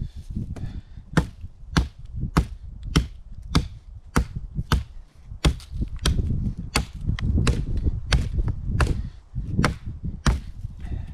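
Firewood being chopped: a steady run of sharp blows of a blade into wood, about one every half second or so.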